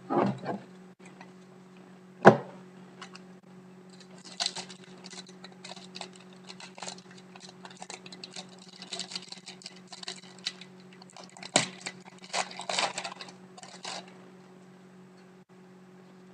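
Hockey trading cards being handled as a pack is opened and gone through: a sharp snap about two seconds in, then a run of short rustles and slides of cards from about four to fourteen seconds, over a steady low electrical hum.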